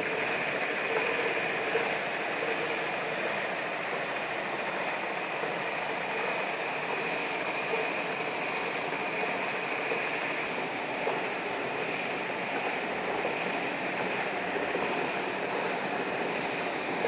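Homemade edge belt sander running free with no workpiece: a steady whir of its electric motor and moving sanding belt, with a thin high tone over a low hum.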